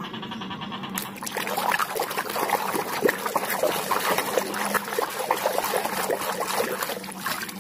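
Water splashing and sloshing in a plastic tub as a hand scrubs a muddy plastic toy under the water, starting about a second in with many quick, irregular splashes.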